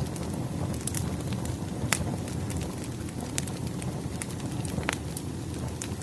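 Campfire crackling: a steady low rumble of burning with frequent sharp pops and snaps, the loudest about two seconds in and again near five seconds.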